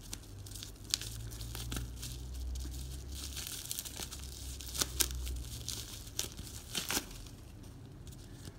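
Parcel packaging being crinkled and torn open by hand: scattered crackles, with a few louder snaps about one, five and seven seconds in.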